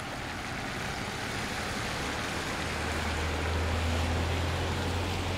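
A vehicle passing on a nearby road: a low rumble and tyre hiss that swell to a peak about four seconds in and then ease off, over a steady background hiss.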